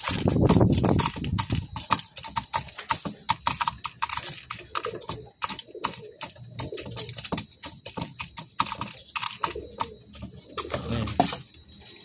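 Pigeon pecking feed out of a small metal feeder box: rapid, irregular tapping clicks of beak on tin, with a louder rustle in the first second or so.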